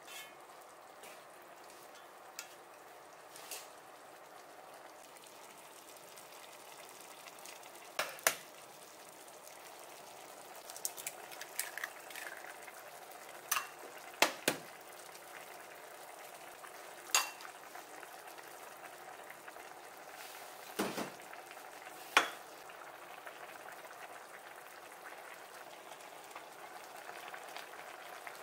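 Udon broth simmering in a pot with a steady bubbling that grows slowly louder, with sharp clicks and knocks now and then from utensils against the pot.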